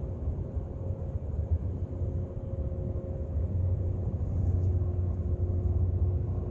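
Steady low rumble of harbour ambience with a faint, steady machine hum over it.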